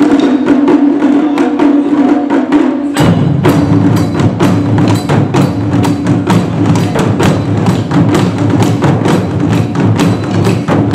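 Taiko drum ensemble playing. The opening has a sustained held tone under sparse strikes, and about three seconds in the full group comes in with a fast, steady rhythm of drum beats.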